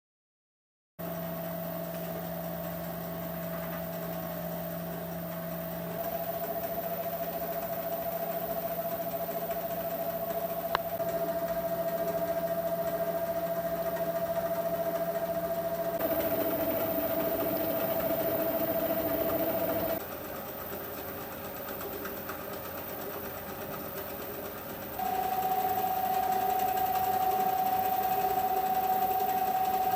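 Myford ML7 lathe, driven through a Newton Tesla speed controller, running steadily with a clear whining tone. Its pitch and loudness change in sudden steps several times, and there is a single sharp click partway through.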